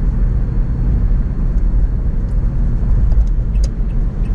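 Steady low rumble of a car's engine and tyres on the road, heard from inside the cabin while driving at speed, with a few faint ticks in the second half.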